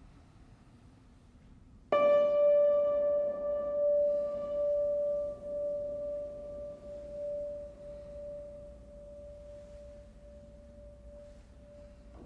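One key of a grand piano struck once, about two seconds in; the single note rings out and slowly dies away over the next ten seconds.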